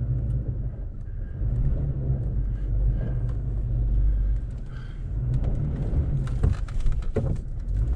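A four-wheel-drive vehicle crawling off-road in four-high, its engine and drivetrain giving a steady low rumble. A run of knocks and clatter comes in the last couple of seconds as the truck works over uneven ground.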